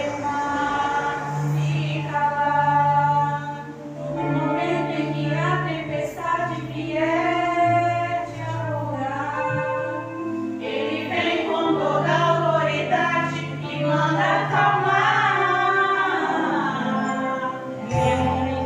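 A group of women singing a gospel praise song together, over low sustained accompaniment notes.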